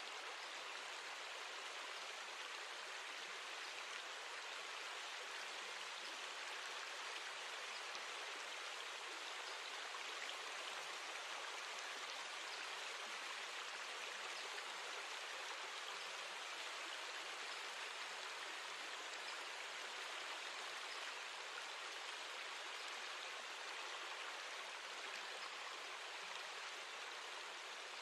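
Steady, even hiss of a water ambience recording, gentle rain and running water, playing as background sound.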